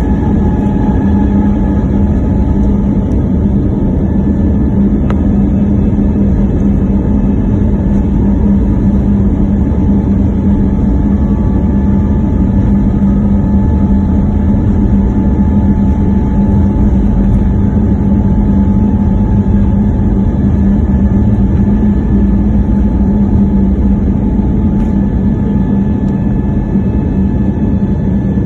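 Airbus A320neo's turbofan engines running at takeoff power: a loud, steady rushing noise with a low hum and a fainter higher tone held unchanged throughout.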